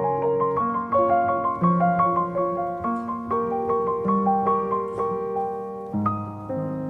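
Background piano music: a gentle melody of steadily struck notes over held chords.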